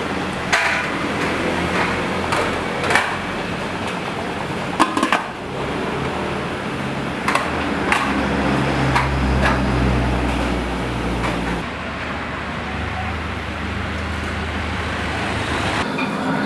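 Busy street ambience: a low engine rumble that swells from about seven seconds in and drops away near twelve seconds, with scattered sharp knocks and clinks.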